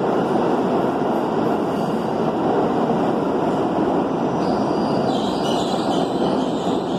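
R62A subway cars rolling past along an underground station platform, a steady loud rumble and clatter of wheels on rail. A higher-pitched squeal joins about five seconds in.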